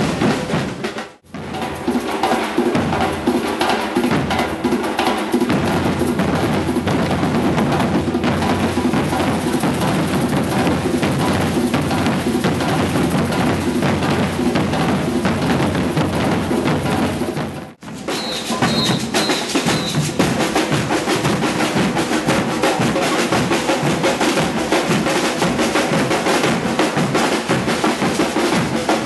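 A percussion group of bass drums and snare drums playing a dense, continuous rhythm with snare rolls. The drumming breaks off twice for an instant, about a second in and about two-thirds of the way through, where it cuts to another passage of drumming.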